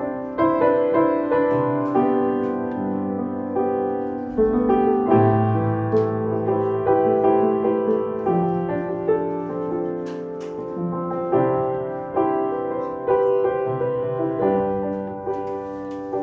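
Upright piano played alone as a song's introduction: sustained chords under a simple melody, a new note or chord struck every half second to a second.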